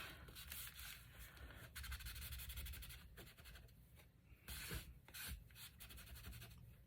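Faint rubbing and rustling of paper under the hand as a freshly glued paper pocket is pressed and smoothed down, with a few light taps.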